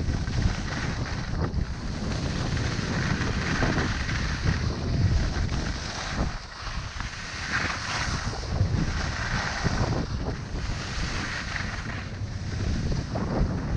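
Wind noise on the microphone while skiing downhill, with the hiss of skis scraping over packed snow swelling with each turn every second or two.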